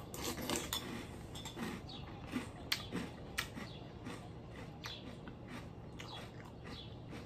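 A mouthful of crispy oatmeal-puff cereal in milk being chewed, heard as scattered faint crunches and clicks, a few sharper ones in the middle. A metal spoon clicks near the start.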